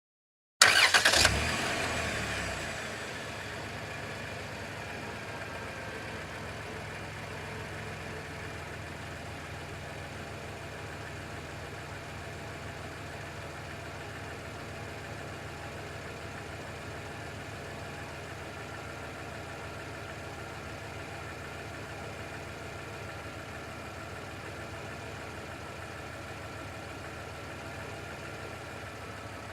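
A car engine starts with a sudden burst about half a second in, runs up louder for a couple of seconds, then settles to a steady idle by about four seconds in.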